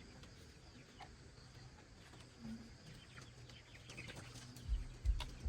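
Chickens clucking faintly, with a few dull thumps close by near the end.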